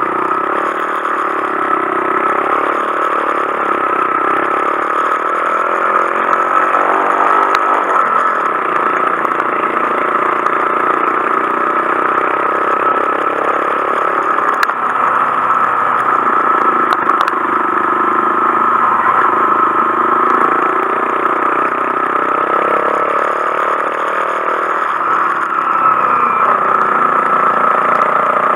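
Honda Monkey 125's single-cylinder engine running under way, its pitch rising and falling as the rider works the throttle and gears.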